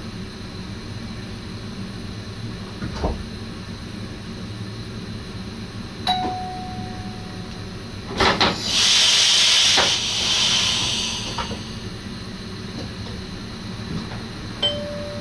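Inside the cab of an NS SGM Sprinter electric train: a steady low rumble, with a click and a short single-pitch beep about six seconds in and another near the end. About eight seconds in, two knocks are followed by a hiss of compressed air lasting about two and a half seconds.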